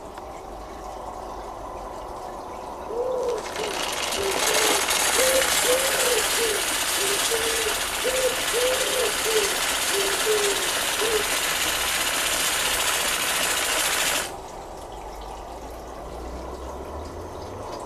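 Live-steam model Willamette steam donkey working its winch to haul a log. A loud steam hiss comes in about three seconds in and cuts off suddenly near the end, with a run of short squeaky warbling tones over the first part of the hiss.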